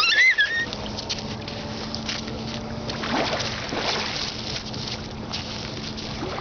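Outdoor wind noise on the microphone with a faint steady hum, broken right at the start by a brief high, wavering squeal.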